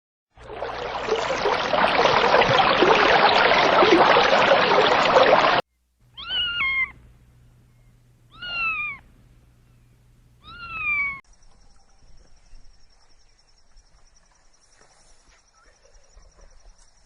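About five seconds of loud, steady rushing noise that cuts off suddenly, followed by three short cat-like meows about two seconds apart, each falling in pitch. A faint, steady high tone follows the meows.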